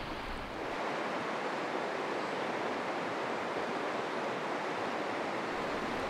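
Steady rushing of a shallow river flowing over stones.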